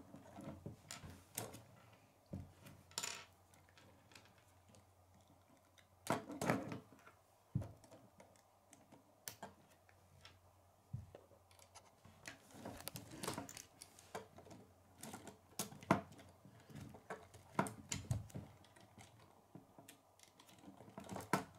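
K'nex plastic rods and connectors clicking and snapping together by hand, with irregular light clicks and knocks as the pieces are handled.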